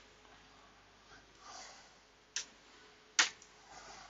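Two short, sharp clicks a little under a second apart as laptop parts are handled during reassembly, with faint rustling between.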